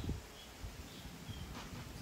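Quiet outdoor garden ambience: a low, uneven rumble with a few faint, short high chirps, and a couple of soft taps near the end.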